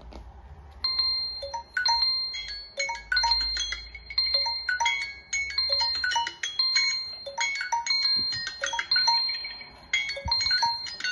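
Timer alarm tones from several smartphones (Samsung Galaxy S9, Samsung Galaxy A31, Xiaomi Redmi 9C) ringing at once after their countdowns run out, starting about a second in: overlapping, repeating electronic chimes and beeps.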